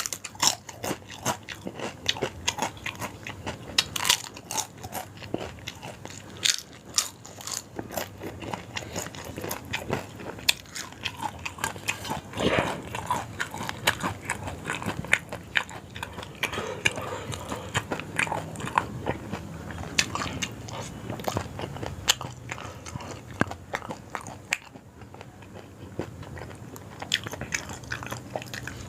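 Close-miked chewing and biting of yong tau foo, with many sharp, irregular crunchy clicks and wet mouth sounds.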